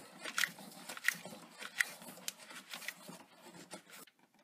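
A hand gripping and twisting a new Purolator spin-on oil filter tight against the engine, with faint short scrapes of skin and fingers rubbing on the metal canister, about one every two-thirds of a second, dying away near the end.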